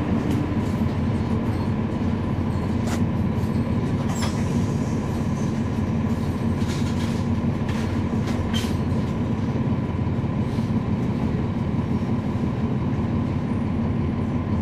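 Cummins ISL9 six-cylinder diesel of a NABI 40-SFW transit bus heard from inside the cabin, running with a steady low drone and a thin steady whine. A few sharp rattles or clicks come from the bus body between about three and nine seconds in.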